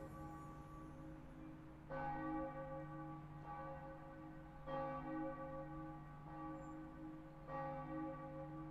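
A bell tolling, struck three times about three seconds apart, each stroke ringing on until the next.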